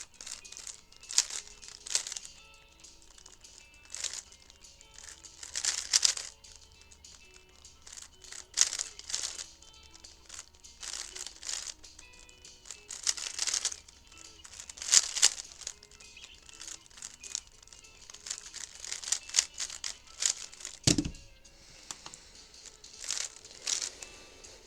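Plastic 3x3 speedcube being turned in quick bursts of clicking and rattling, with faint music behind it. One dull thump comes near the end.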